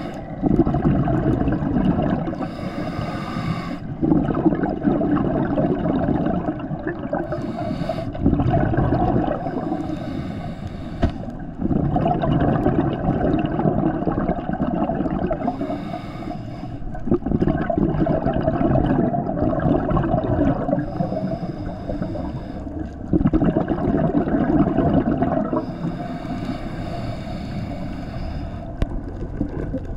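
Scuba diver's regulator breathing heard underwater: bubbles of exhaled air gurgling in long bursts every four to six seconds.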